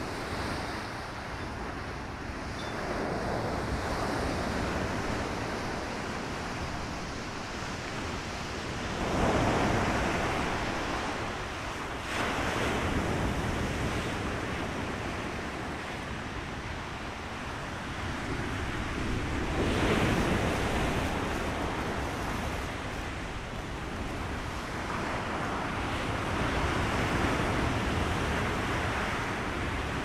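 Stormy sea waves breaking and washing ashore in repeated swells, with wind buffeting the microphone as a steady low rumble underneath. The biggest breakers come about a third of the way in and again about two-thirds of the way in.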